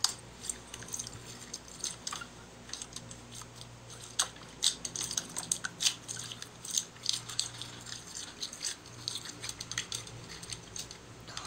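Glittery slime being pressed and kneaded by hand on a tabletop: irregular sticky clicks and small pops, over a low steady hum.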